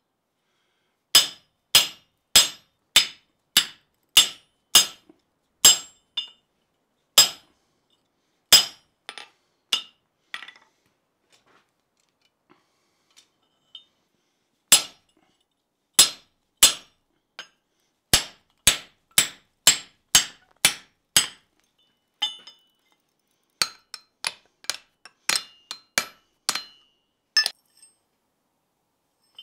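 Hand hammer striking a punch driven into hot round bar resting in a slotted bottom swage on the anvil: a series of sharp, ringing metal blows, about two a second, in runs with short pauses between them.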